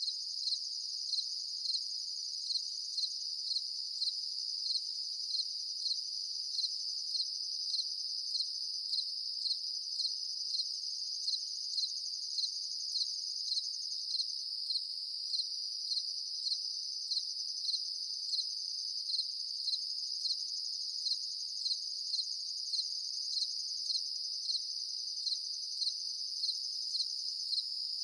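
Crickets singing at night: a continuous high-pitched trill with a louder chirp repeating at a steady pace, a little under twice a second.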